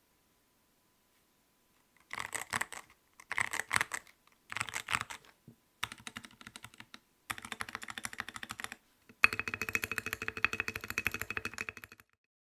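Typing on a Vortex Series VX8 75% mechanical keyboard with stock switches and PBT keycaps, foam in the bottom case and tape under the PCB. After about two seconds of silence come short bursts of keystrokes, then faster, continuous typing over the second half.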